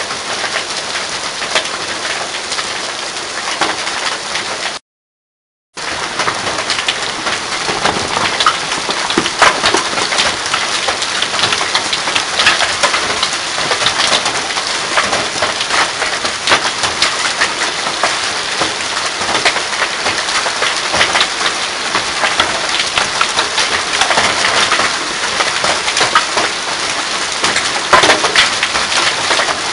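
Hail falling hard, hailstones striking the ground and hard surfaces as a dense, steady patter dotted with many sharp ticks. The sound cuts out completely for about a second near the start, then goes on as before.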